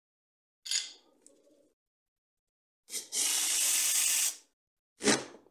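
Corded electric screwdriver whirring steadily for about a second and a half as it backs a screw out of an airsoft AK's version 3 gearbox shell. A sharp click comes about a second in, and another near the end.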